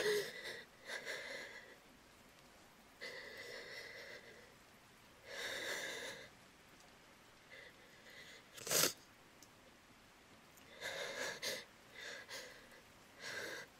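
A woman crying quietly: irregular shaky, breathy sobs and sniffles, with one short sharp sniff about nine seconds in.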